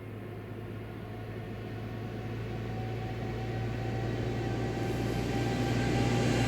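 A road vehicle approaching with a steady engine hum, growing steadily louder.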